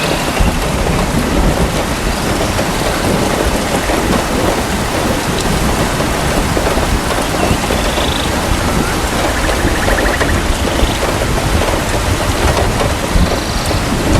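Steady rain falling, with low thunder rumbling continuously beneath it from about the start onward.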